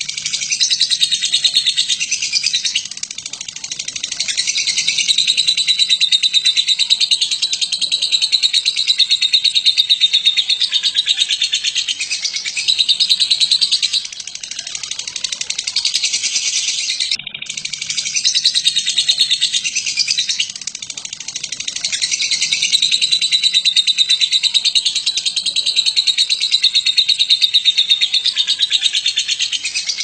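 Lovebird giving its long 'ngekek' chatter: a fast, continuous run of high chirps. It keeps going in long stretches with only a few brief breaks.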